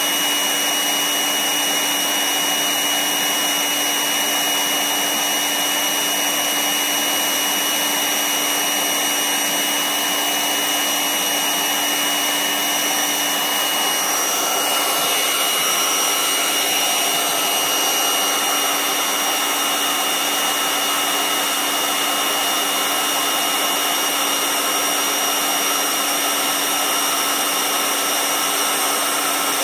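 Electric AC air pump running steadily as it blows air into an exercise ball, a motor whine over a rush of air, the pitch shifting slightly about halfway through.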